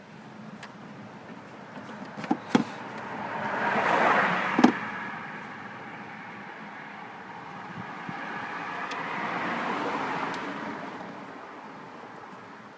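Two cars pass by one after the other, each swelling up and fading away. A few sharp clicks of parts being handled come in the first five seconds.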